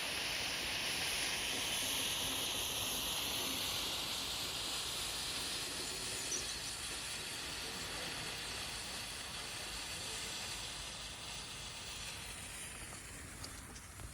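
Potassium nitrate and sugar rocket propellant burning with a steady hiss, which slowly dies down over the last few seconds.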